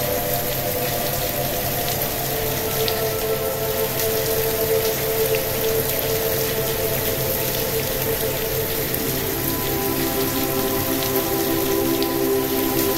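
Steady rain, with single drops heard as small clicks, over the soft held drone of delta-wave relaxation music. The drone's held notes change about two and a half seconds in and again near ten seconds.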